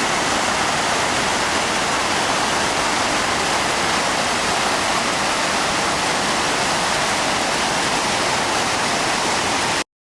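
Steady rushing of a large waterfall, Iguazu Falls, as the river pours over its edge; the sound cuts off suddenly near the end.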